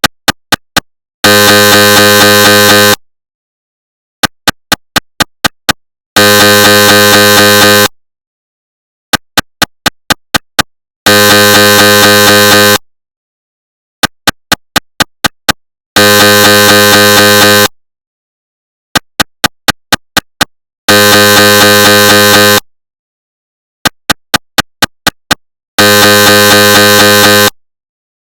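Recreated GE SIGNA Victor MRI scanner sounds: a quick run of about six sharp knocks followed by a loud buzzing tone lasting under two seconds, the pattern repeating about every five seconds, six times over.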